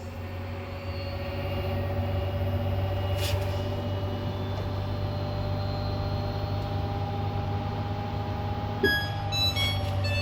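Samsung Grande AI 21 kg front-loading washing machine spinning in a service-mode spin test: a steady motor hum with a whine that slowly rises in pitch, then begins to fall near the end. A quick string of short electronic beeps at several pitches sounds near the end.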